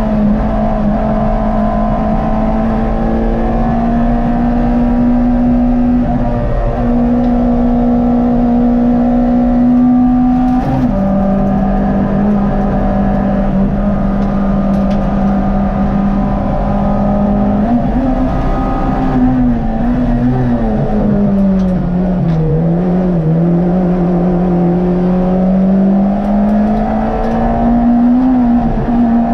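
Engine of an RS1400-class hillclimb car heard from inside the cabin, running hard at high revs on a climb. The engine note steps down briefly about six seconds in and again at about eleven seconds, then sags and wavers lower before climbing back up in the last third.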